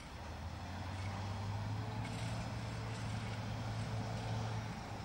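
Diesel locomotive engine running at idle, heard from a distance as a steady low drone that eases off near the end.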